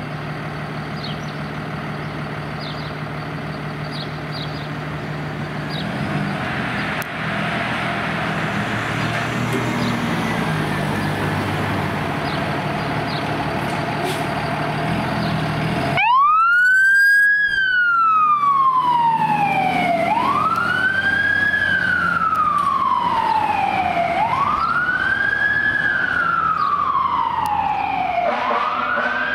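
Fire engine running steadily as it pulls out. About halfway through, after an abrupt cut, its siren wails loudly, each sweep rising quickly and falling slowly, about every four seconds.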